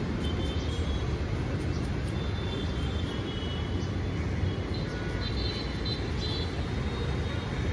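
Steady street traffic noise: an unbroken low rumble of passing vehicles, with faint high tones here and there.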